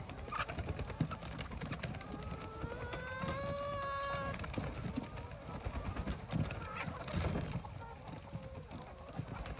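A flock of laying hens calling and clucking as they come out of their mobile coop onto pasture, with one long call that rises and then holds from about two to four and a half seconds in.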